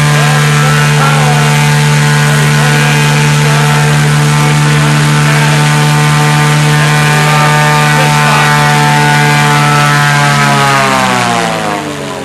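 Eggenfellner E6 Subaru-based six-cylinder aircraft engine at full power, turning a four-blade composite propeller with a loud, steady drone. About ten and a half seconds in it is throttled back, and its pitch and loudness fall away together.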